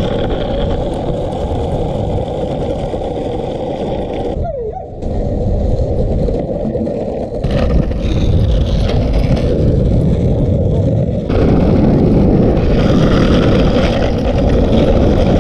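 Skateboard wheels rolling over asphalt, with wind rushing over the microphone: a loud, steady rolling noise that dips briefly about four and a half seconds in.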